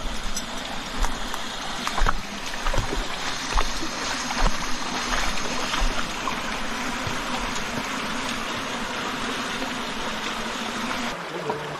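Mountain stream water rushing steadily over rocks, with irregular knocks and splashes in the first half. The rushing drops off sharply near the end.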